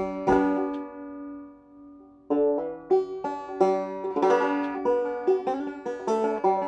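Open-back banjo playing a reel. About half a second in a chord is left ringing and fades away, and the picking starts again a little past two seconds in.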